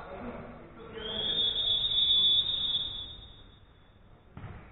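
Referee's whistle blown once in one long, high blast about a second in, fading out in the hall's echo. A short thud near the end.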